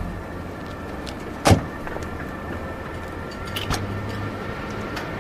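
A car door shut with a single loud thump about one and a half seconds in, over a steady low hum of street ambience, followed by a few light clicks after three and a half seconds, like a door latch being worked.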